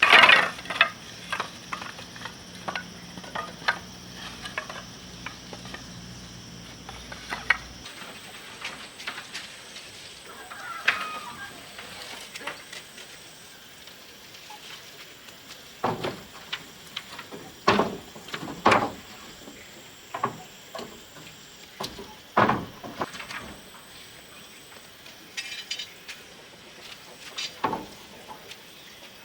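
Irregular knocks and taps, like work on wood or bamboo, several of them louder about two-thirds of the way through, over a thin, steady high-pitched drone.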